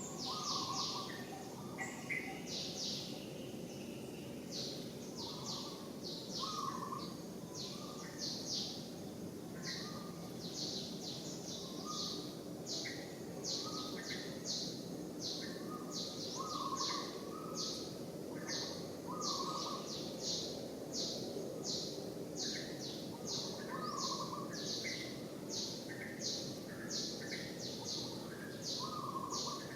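Birds chirping: a steady run of short, high chirps about two a second, with lower calls every few seconds, over steady outdoor background noise.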